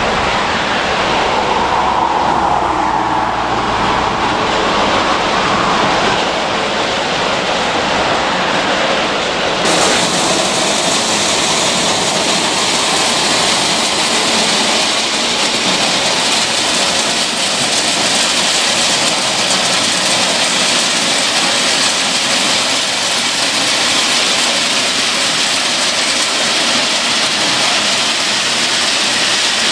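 Ballast hopper wagons rolling slowly past while discharging crushed-stone ballast onto the new track. There is a low rumble at first, then from about ten seconds in a steady rushing hiss of stone pouring from the chutes.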